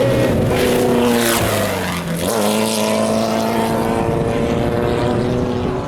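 Off-road race vehicle engines running hard. One passes by about two seconds in, its pitch dropping sharply, and then engine noise carries on at a steady, lower pitch.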